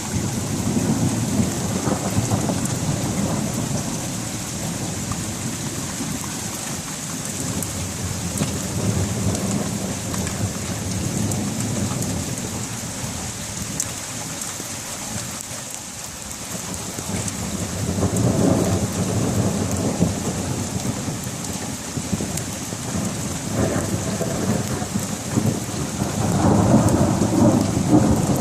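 Thunderstorm: steady rain falling, with thunder rumbling through it in several rolling swells, the loudest near the end.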